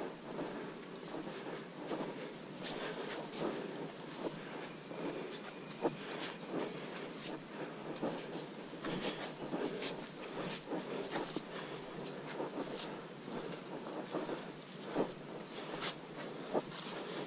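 Footsteps and rustling on a muddy, leaf-strewn forest trail as people walk, with irregular soft crunches and knocks over a steady background hiss.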